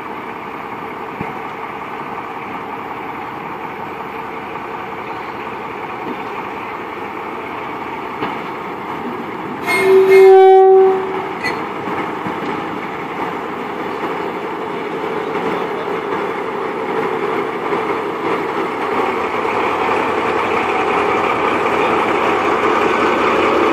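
DR class 112 (V 100) diesel-hydraulic locomotive running as it moves along the track. It gives one loud horn blast of about a second roughly ten seconds in. The engine then grows steadily louder as the locomotive draws close and passes.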